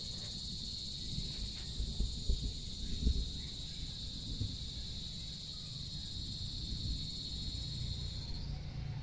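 Steady high-pitched insect chorus at dusk, one even shrill drone that weakens near the end, over a low uneven rumble.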